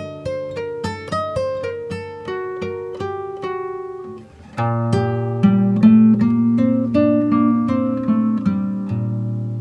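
Instrumental background music of quickly picked plucked-string notes. About four and a half seconds in it drops away briefly, then comes back fuller, with deep bass notes under held chords.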